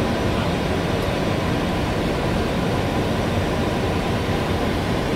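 Steady cockpit noise of a Boeing 737 in descent: the rush of air over the nose together with engine noise, unchanging and heaviest in the low end.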